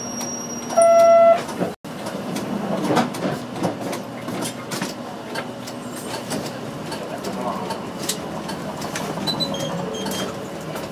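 Inside a Hokkaido Chuo Bus route bus: the diesel engine runs with cabin rattles and small knocks. About a second in a loud electronic buzzer tone sounds for about half a second, and the sound cuts out for an instant just after it. A few faint short high beeps sound near the end.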